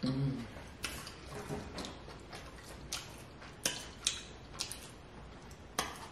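Eating sounds from a person eating snow crab with sauce: a short closed-mouth 'mm' right at the start, then chewing with about seven sharp clicks and smacks spread unevenly through the rest.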